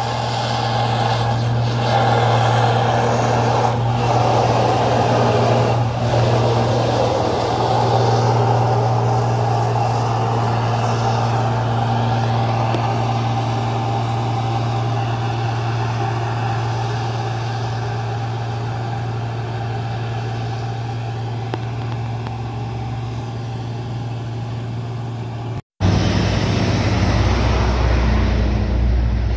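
Hino 500 dump truck's diesel engine running with a steady low drone as the truck drives past and away. About 26 s in the sound cuts off abruptly and gives way to another heavy vehicle's engine rumble.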